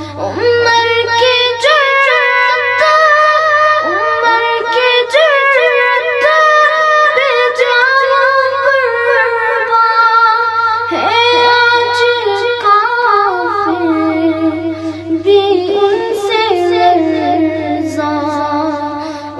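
A boy singing a naat, an Islamic devotional song, solo in long held notes with wavering, ornamented pitch over a steady low hum.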